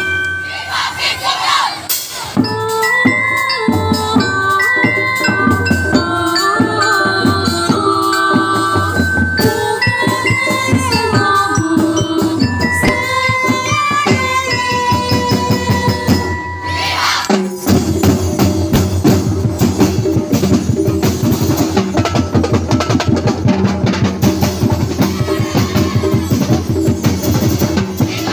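Festival street-dance music: a melodic passage of held notes over percussion, then about 17 seconds in it switches to a fast, driving drum beat.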